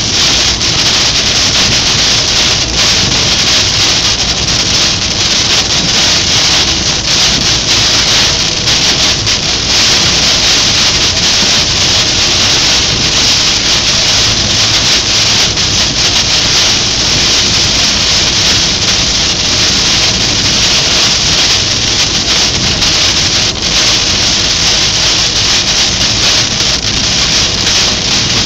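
Torrential rain beating on a car's windscreen and roof, heard from inside the car: a loud, steady hiss.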